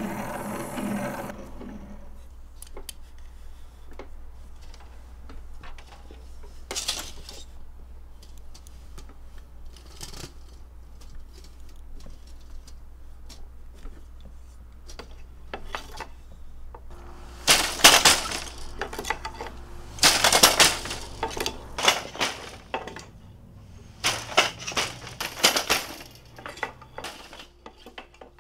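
Weaving on a loom: sparse light clicks and taps at first, then in the last third several loud bursts of clattering and rattling, each a second or two long.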